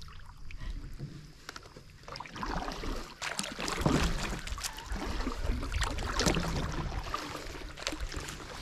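Canoe paddle strokes in the water: uneven splashing and dripping close by, louder about four and six seconds in.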